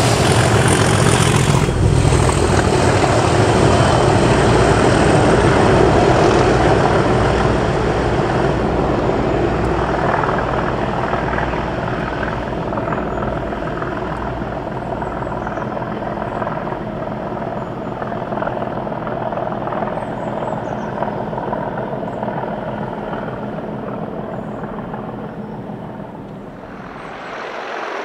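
British Rail Class 37 diesel-electric locomotive, with its English Electric 12CSVT V12, running close by at the rear of a rail head treatment train, then fading steadily as the train pulls away into the distance.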